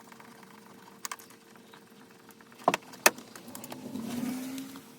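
Small metal parts clicking against a bolt and plastic trim as a tiny washer and M4 nut are fitted onto the back of a magnet's bolt: a light click about a second in, two sharp clicks close together just before the middle, then a short scraping rustle.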